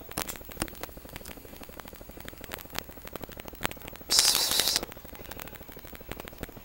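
A person hisses at a cat once: a single short, sharp hiss of under a second, about four seconds in, over faint scattered clicks.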